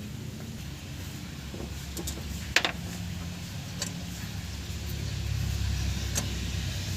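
Low engine rumble of a motor vehicle, swelling louder in the second half, with a few sharp metallic clinks; the loudest clink comes a little after two and a half seconds in.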